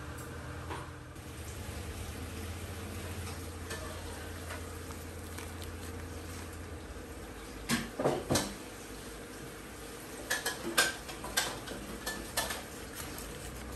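Stir-frying in a wok: a steady frying hiss, with a metal spatula clanking against the wok, a few sharp strikes about halfway through and a quick run of them later on.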